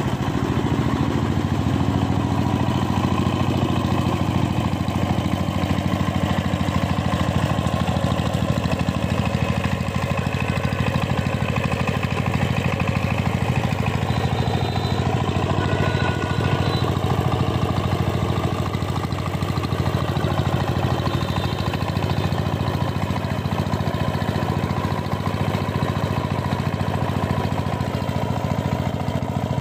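Two-wheel power tiller's single-cylinder diesel engine running steadily while the machine is worked through a field.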